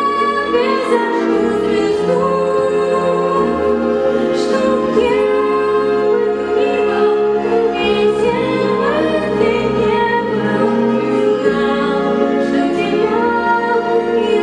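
Music with singing: a sung melody over sustained accompaniment, steady throughout.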